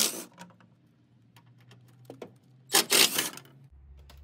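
Inner splash guard panel being worked loose after its screws are removed: two short scraping bursts, one right at the start and one about three seconds in, with light clicks and knocks between.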